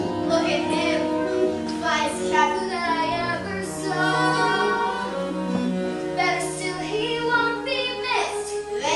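Children's and women's voices singing a show tune together on long held notes.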